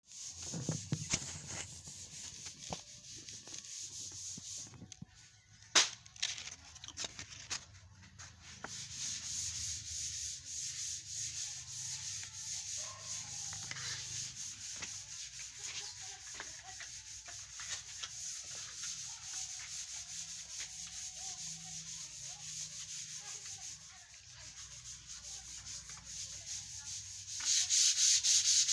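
240-grit sandpaper rubbing over wood sealed with a first coat of sanding sealer, a steady run of quick scratchy strokes. A single sharp knock about six seconds in, and the sanding grows louder near the end.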